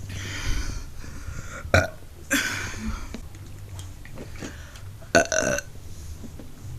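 A woman burping several times in a row, with pauses of a second or more between burps; the last, about five seconds in, is among the loudest.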